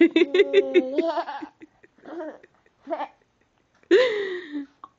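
Toddler laughing: a quick run of short giggles in the first second and a half, a couple of brief vocal sounds, then another loud laugh about four seconds in.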